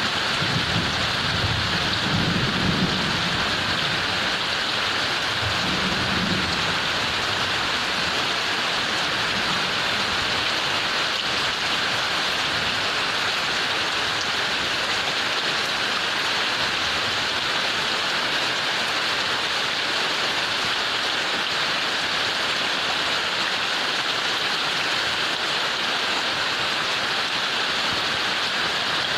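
Heavy rain falling steadily in a dense, even hiss, with low rumbles of thunder in the first several seconds.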